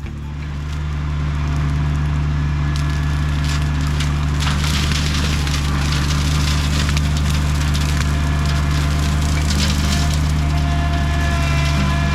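Engine of a piece of farm machinery running steadily under load, with continuous crackling and snapping of woody brush being cut or broken. The sound swells up over the first second or so.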